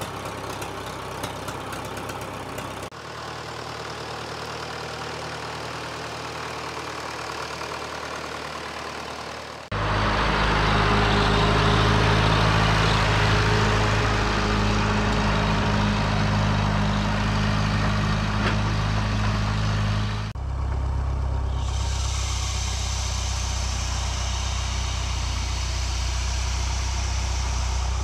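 Case 730 tractor engine running steadily, heard in several stretches cut together. In the last stretch a high squeal from the tractor's power steering belt sits over the engine.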